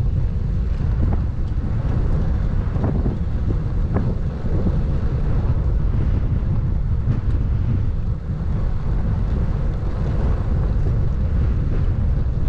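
Wind buffeting the microphone, a steady low rumble with a few faint ticks.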